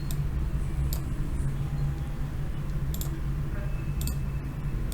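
Three sharp, isolated clicks, spread a second or so apart, over a steady low hum.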